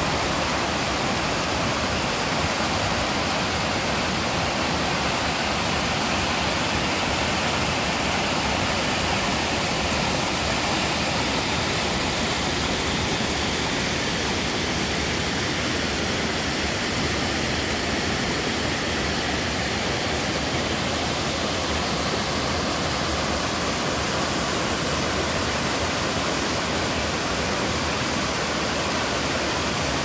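Waterfall in a mountain stream pouring steadily after rain, an even rush of water with no breaks.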